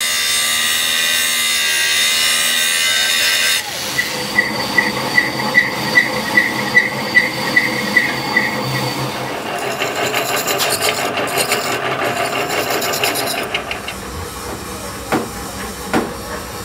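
Angle grinder cutting through a steel hydraulic-cylinder part for about three and a half seconds, then a sudden cut to a metal lathe cutting steel, with a steady ticking about two and a half times a second, and more machine noise after it. Near the end there are a few separate knocks.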